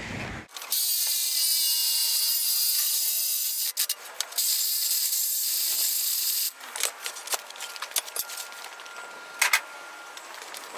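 Cordless power saw cutting through a metal pipe in two long runs, with a short pause just under four seconds in. After about six and a half seconds the saw stops, and only lighter clicks and clatter follow.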